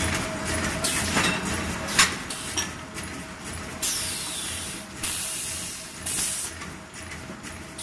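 Double-line T-shirt bag making machine running with a steady hum and repeated clacks from its heat-sealing and cutting mechanism, a sharp clack about two seconds in. Short hisses of air from its pneumatic cylinders come several times in the second half.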